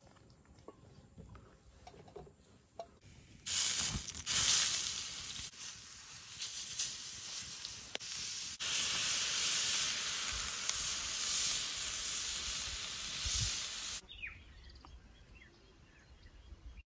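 Fish steaks sizzling on a hot griddle over a campfire: a loud, steady hiss that starts abruptly a few seconds in and stops suddenly near the end. Faint knocks and taps come before it.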